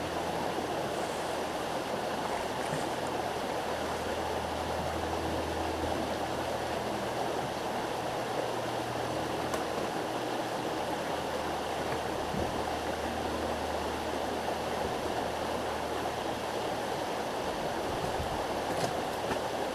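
Little River, a rocky mountain stream, rushing steadily over its rocks.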